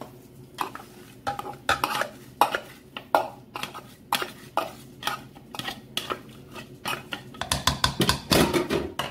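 A plastic food-processor bowl and a utensil knocking and scraping against a mixing bowl as chopped chickpeas are emptied and scraped out: a string of clatters and taps, coming thickest near the end.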